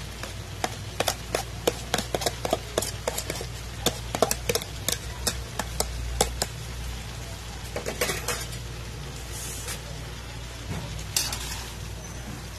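Sotanghon glass noodles going into a pan of bitter gourd and chicken: a run of sharp crackles and clicks for the first six seconds or so. Later come a few scraping strokes of a metal spatula stirring in the pan.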